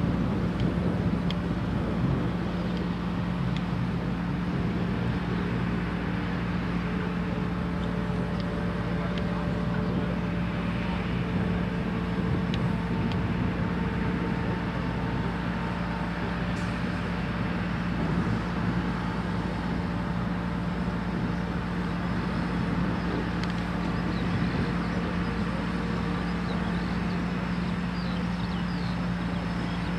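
Diesel engine of a Liebherr LTM 1500-8.1 mobile crane running steadily under load with a constant hum while the crane moves its boom and suspended load. Faint whining tones come and go over the engine.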